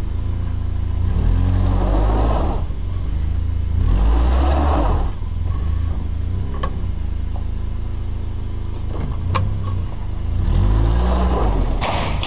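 Truck engine running under load and revving up three times, pulling on a rope tied to a shed, with two sharp clicks between the revs.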